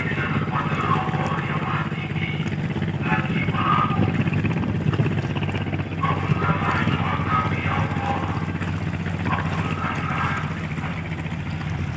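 Steady low diesel drone of a large ship's engines running at the berth, with indistinct voices coming and going over it.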